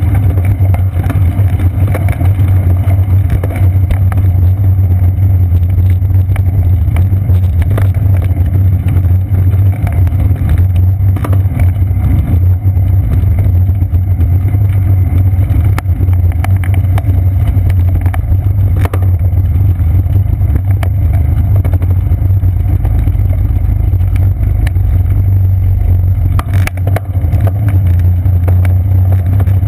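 Loud, steady low rumble of wind and ride vibration picked up by a seat-post-mounted GoPro Hero 2 on a moving bicycle, with scattered knocks from bumps in the path. A short run of knocks comes near the end as the bike rolls onto a wooden boardwalk.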